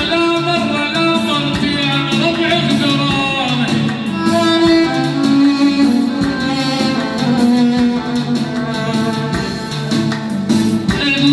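Live music: an electronic keyboard playing a folk melody with string-like voices over a steady beat.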